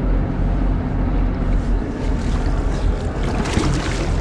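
Boat engine running steadily, with wind on the microphone. About three seconds in, a hooked cobia thrashes and splashes at the surface beside the boat.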